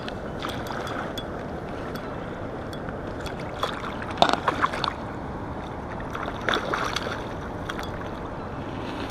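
A hooked asp thrashing at the water's surface beside the bank: a quick run of sharp splashes about four seconds in and a shorter one about two seconds later, over steady wind noise on the microphone.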